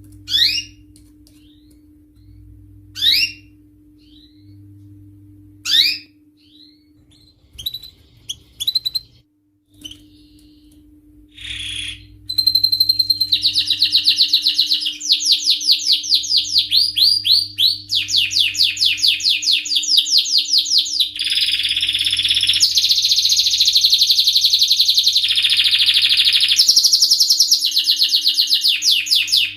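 Canary singing: a few separate quick rising chirps about every three seconds, then from about twelve seconds in a continuous song of fast rolling trills that shift pitch every second or two.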